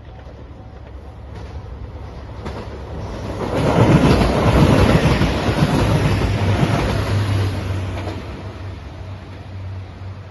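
JR 2700 series diesel limited express train passing a level crossing at speed: the rumble of wheels on rail swells to a loud rush about three and a half seconds in and fades away by near the end, leaving a low engine drone. A level-crossing warning bell rings faintly under it.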